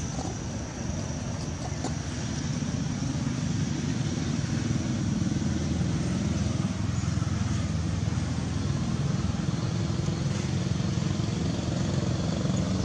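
Steady low rumble of a running engine, such as a motorbike's, growing a little louder over the first few seconds and then holding steady.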